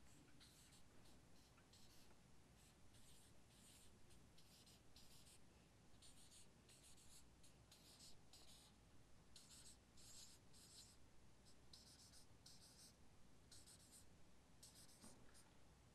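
Marker pen writing on a flip-chart paper pad: a run of short, faint, scratchy strokes, coming in irregular clusters.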